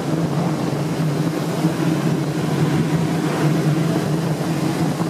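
Ship's engine room ventilation blowers running: a steady, loud mechanical hum over an even rush of air.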